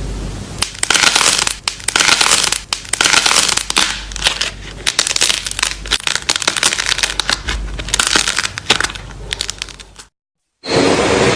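Crunchy slime being squeezed and pressed by hand: dense crackling and popping in repeated squeezes about once a second. It stops shortly before the end, and after a brief gap a different, louder noisy sound begins.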